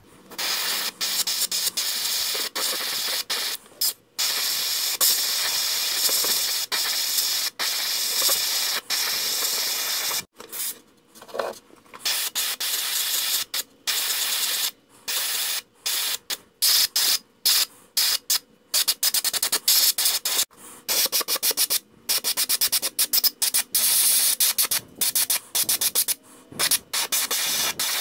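Airbrush spraying paint in hissing bursts as the trigger is pressed and let go. The bursts are long at first, then many short, quick ones through the second half.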